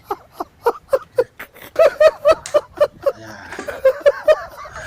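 A person laughing in a long run of short 'ha' bursts, about three to four a second, with two brief breaks.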